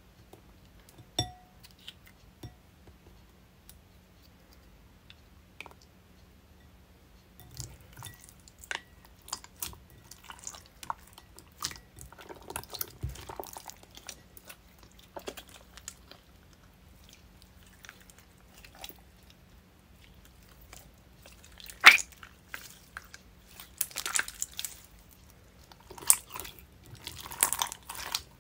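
Clear, bead-filled jiggly slime being squeezed and stretched by hand in a glass bowl, making wet squishing, clicking and crackling. There are a few lone clicks in the first seconds, and steady squishing from about a quarter of the way in, with a sharp pop about three quarters of the way through.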